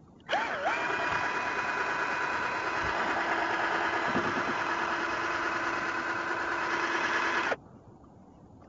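Cordless drill spinning a propeller on a long shaft (a drill paddle) to push a kayak. The motor whine starts suddenly, dips and settles to a steady pitch within the first second, runs evenly for about seven seconds, then cuts off abruptly. The propeller churns the water.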